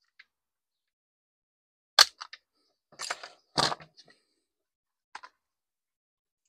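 Hard plastic parts of a string trimmer's recoil starter clicking and knocking together as the pulley is fitted onto its spring: a sharp clack about two seconds in, a short rattling scrape a second later, another clack just after, then a couple of light clicks.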